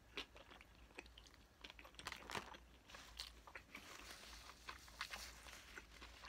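Faint, close-up mouth sounds of biting into and chewing a bunless McDonald's double cheeseburger: irregular wet smacks and clicks, a little louder about two seconds in.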